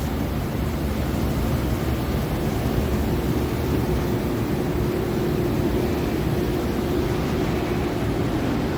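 Citizen K16 VII CNC Swiss-type lathe running a machining job: steady machine noise with a steady mid-pitched tone that drops away near the end.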